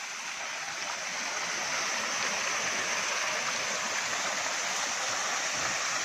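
Small waterfall splashing down a rocky cascade: a steady rush of falling water, growing a little louder over the first two seconds and then holding even.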